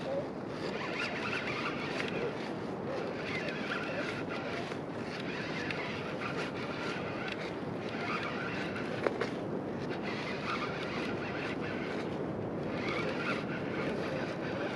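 Conventional fishing reel cranked in short spells of winding, over steady wind and water noise. A single sharp knock about nine seconds in.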